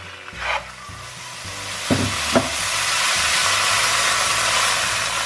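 Two sharp clicks at the gas hob's control, then a steady hiss that builds up and holds: a gas burner lit under an aluminium pot of raw lamb mince.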